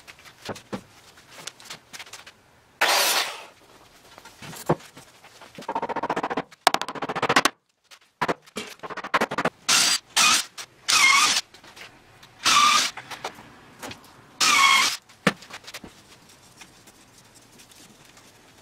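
Cordless drill running in about eight short bursts into wooden framing, each burst a whine that spins up and winds down, with knocks of wood and tools in between.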